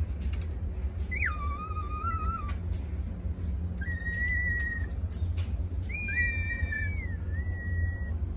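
Three long whistled notes, each held at a steady pitch; the first drops sharply just after it starts, and the later ones are higher. A steady low hum and scattered short clicks run underneath.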